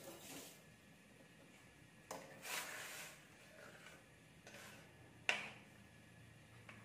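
A metal utensil stirring spice paste in a stainless steel wok. It scrapes about two seconds in and again more lightly later, then clinks sharply against the pan near the end.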